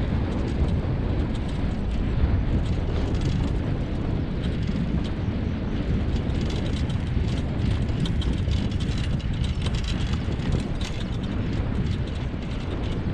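Steady rumbling of a wheeled rig rolling over a dirt track behind a running four-dog husky team, mixed with wind on the microphone and light scattered ticks.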